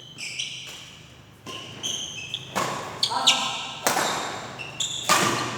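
Table tennis rally: the ball clicks sharply off paddles and the table in an irregular series of hits, each with a short ringing ping and hall echo.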